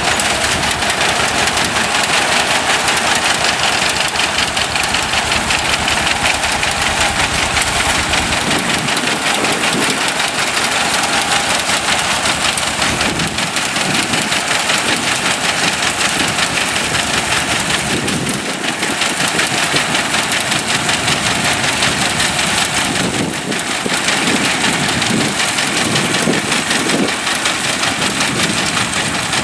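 John Deere 620 tractor's two-cylinder engine running steadily as it pulls a John Deere grain binder cutting and tying oats, the binder's mechanism working along with it.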